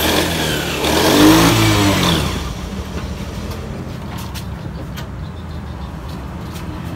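Yamaha Mio 125 Blue Core single-cylinder scooter engine revving briefly for about two seconds, then dropping back to a steady idle, with a few light clicks near the middle. The engine is running with the engine-check lamp showing fault code 15, which means a throttle position sensor fault, and the owner's complaint is that it stutters.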